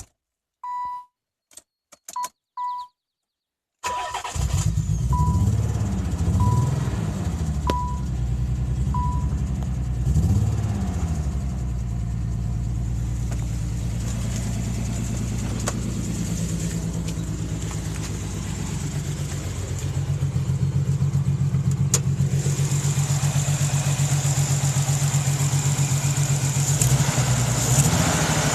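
A 1992 Nissan 300ZX's naturally aspirated 3.0-litre V6 starts about four seconds in, after several short electronic beeps. The beeps keep sounding about once a second for a few seconds while the engine runs, with its pitch rising and falling twice as it is revved, then it settles into a steady idle. The engine has a misfire that the owner calls horrible.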